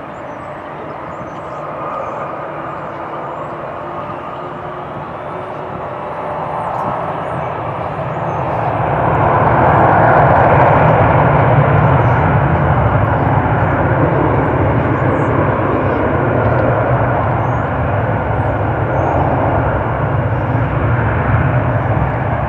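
Jet airliner's engines passing close by, a rushing noise that swells to its loudest about ten seconds in and stays loud after.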